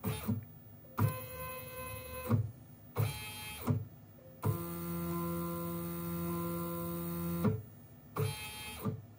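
Stepper motors of a G0704 CNC-converted benchtop mill whining through a probing cycle. They run several short axis moves at a steady pitch, with one longer move of about three seconds in the middle. Each move starts and stops with a short knock.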